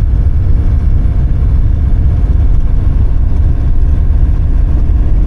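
Vehicle engine and road noise while driving: a loud, steady low rumble.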